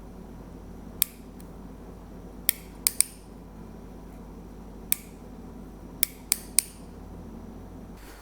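About eight sharp, irregularly spaced clicks from the ratcheting solder-feed trigger of a self-feeding soldering iron as solder is pushed into the joint, over a steady low hum.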